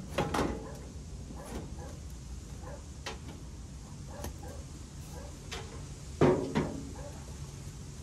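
Sheet-metal top cover of a Mitsubishi Electric outdoor air-conditioning unit being handled, giving a few knocks and clatters. The loudest is a double knock about six seconds in.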